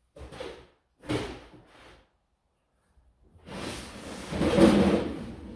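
Rummaging through stored items, with a drawer or bin being handled: two short shuffles, then about three seconds of louder, continuous sliding and shifting of objects.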